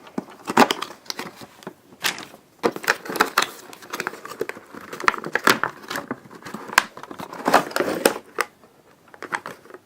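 Plastic and cardboard packaging of a Funko Pop vinyl figure crinkling, rustling and tearing as it is opened by hand, with many irregular sharp clicks and crackles.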